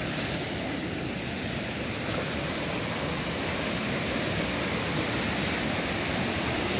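Waterfall rushing: a steady wash of falling water with no break, growing slightly louder.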